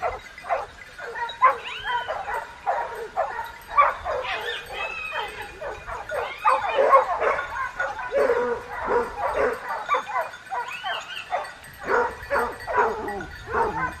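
A pack of hunting dogs giving tongue on a chase: many dogs barking, baying and yelping over one another in a dense, continuous chorus.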